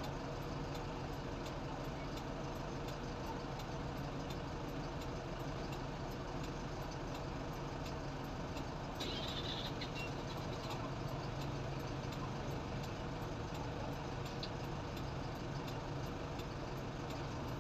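Steady low engine drone at an even pitch and level, with a brief high squeak about nine seconds in.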